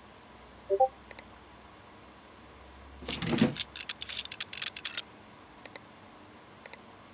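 Small hard objects clicking and rattling: a dense run of clicks from about three to five seconds in, with a few single clicks before and after. Under a second in there is a short pitched blip.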